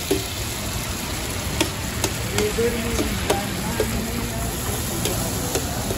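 Mutton liver sizzling in oil on a large flat tawa, with a metal spatula scraping and clacking against the griddle every second or so as the liver is stirred.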